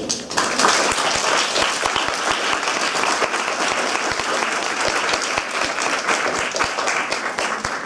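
Audience applauding: many hands clapping at once, starting a moment in and holding a steady level.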